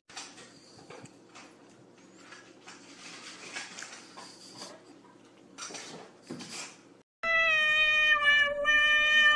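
A cat gives one long, loud, steady meowing cry, beginning about seven seconds in, while licking paste from a tube. Before it there are only faint, soft noises.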